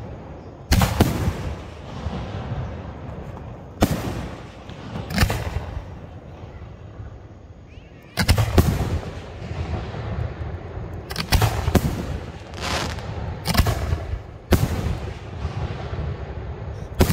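Aerial fireworks bursting overhead: about ten sharp bangs at irregular intervals, some in quick pairs, each trailing off in a short low rumble.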